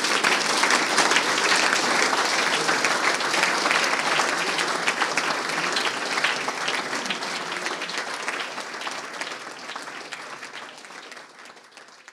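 Audience applauding with many hands clapping, fading out gradually over the last few seconds.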